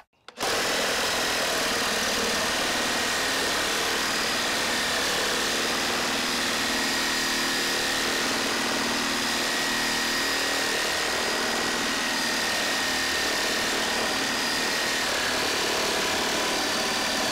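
Makita 18V X2 (36V) LXT brushless reciprocating saw on its higher speed setting, cutting through pressure-treated 4x6 lumber: the motor runs at a steady speed with a constant high whine over the rasp of the blade in the wood, starting about half a second in.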